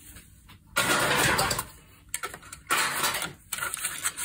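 Plastic scraping and rattling as a small blower fan is worked loose from a projector's plastic case: two rough stretches of noise, the first about a second in and the second about two seconds in, with small clicks between.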